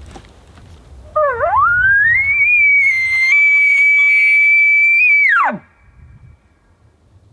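An elk bugle: one long call that starts low about a second in, climbs to a high whistle, holds it for about three seconds, then drops away sharply.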